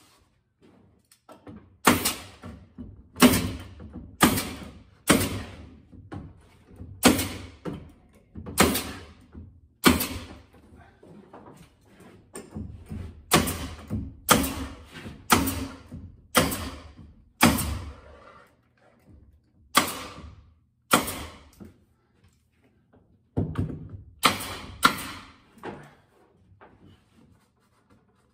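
Pneumatic stapler driving 1.25-inch staples through a thin plywood ceiling panel into the rafters overhead. About twenty sharp shots come roughly one a second, with a few short pauses, each followed by a brief ring.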